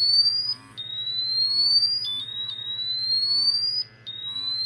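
BW Technology GasAlert XT II gas monitor sounding its alarm: a high tone that rises steadily and restarts about every 1.5 s, three times, over a repeating lower beep.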